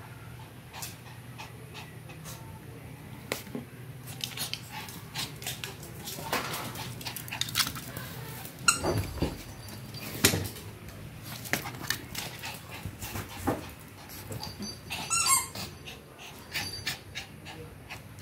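A shih tzu making short vocal sounds, whines and yelps, among scattered sharp clicks and taps. The loudest sounds come in a pair about halfway through.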